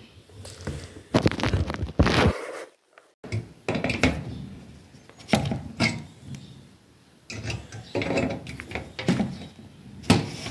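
A metal wire grill and a wooden snap mousetrap being handled on a wooden tabletop: irregular knocks, clicks and rattles of wire against wood and metal, with a short pause about two and a half seconds in.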